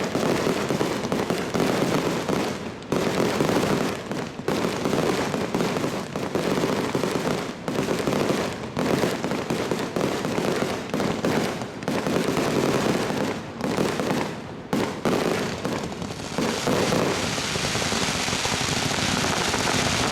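A rapid barrage of fireworks: dense, overlapping bangs and crackling one after another. It gives way to a steady, even noise in the last few seconds.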